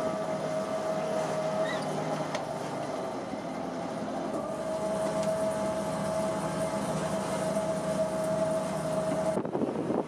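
A machine running steadily with a constant hum and whine, which changes abruptly near the end.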